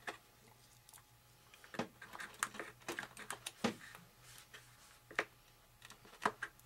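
Light, irregular clicks and taps of a small plastic RC servo being handled and set against a fiberglass wing panel while it is fitted into its cutout.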